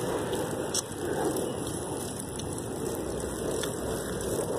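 Wind rushing over a phone's microphone while riding a bicycle: a steady, even rush of noise.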